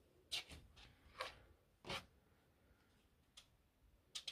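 Paper pages of a spiral-bound notebook being handled and turned: a few short, faint rustles.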